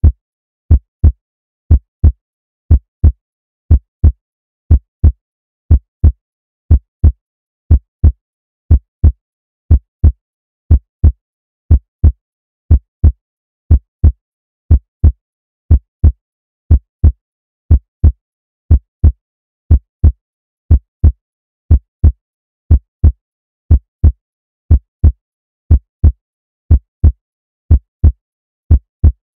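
Heartbeat sound effect: low, dull thumps repeating in a steady slow rhythm, about two a second, with nothing else under them.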